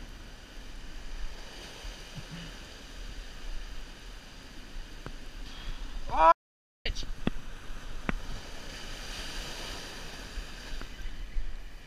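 Waves surging and breaking over rock ledges, with wind on the microphone. About halfway through, a short, loud, rising whine breaks off into a half-second dropout, followed by a few sharp clicks.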